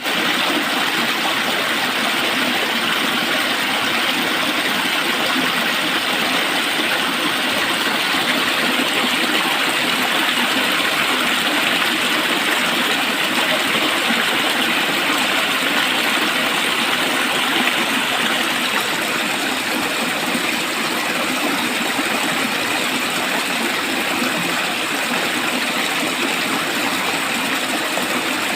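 Running water rushing steadily in a dense, even stream, a little softer from about two-thirds of the way through.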